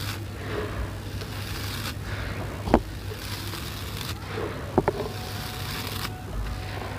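Gritty sand-and-cement mix pouring from cupped hands onto a pile: a hiss of falling grains in three pours of about two seconds each. Two sharp clicks stand out, one a little before the middle and one about two-thirds through, over a steady low hum.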